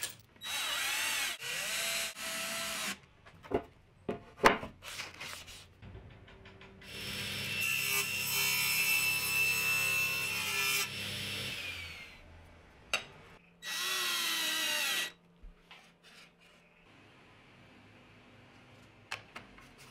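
Table saw running with its blade cutting through a laminated particleboard panel: a loud stretch of about four seconds with a steady whine, plus several shorter bursts of saw noise before and after. A few light clicks near the end.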